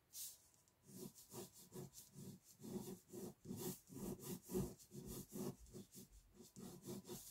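Pen scratching over paper in quick, repeated sketching strokes, several a second with brief gaps, starting about a second in.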